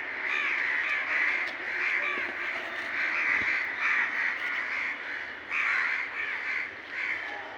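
A flock of crows cawing, many calls overlapping into a continuous chorus.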